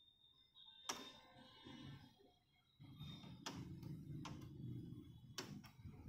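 A precision screwdriver clicking faintly against screws in a Dell laptop's metal keyboard plate, four sharp clicks spread over several seconds. A low steady rumble comes in about halfway through.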